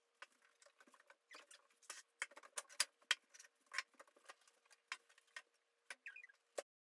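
Quick irregular series of clicks, taps and knocks as kitchen containers are handled and set down on a wooden countertop and cupboard and fridge doors are opened, with a faint steady hum underneath. A short squeak comes near the end, and the sound cuts off suddenly.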